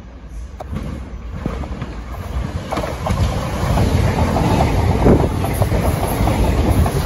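Southern Class 377 Electrostar electric train approaching and running past close by, its wheels clicking over the track. The rumble and rush grow louder, strongest from about three seconds in as the train draws alongside.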